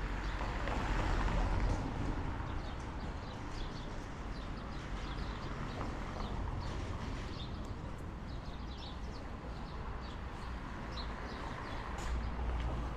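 Street ambience while walking: footsteps on paving, short high bird chirps that come thickest from about five seconds in, and a low rumble that is loudest in the first two seconds.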